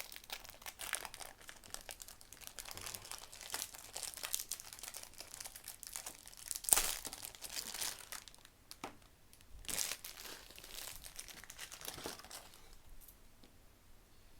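Plastic wrapping around a mirror speed cube being crinkled and torn open by hand: a long run of crackles with louder rips about halfway in and again past two thirds, dying away near the end.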